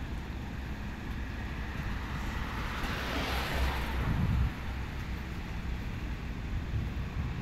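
Low steady rumble from a standing Seibu 2000-series electric train, with wind on the microphone. A hiss swells up and dies away about three to four seconds in.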